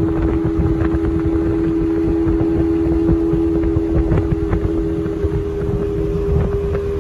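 Small speedboat under way, its outboard motor running at a steady pitch over the rush of water, with wind on the microphone.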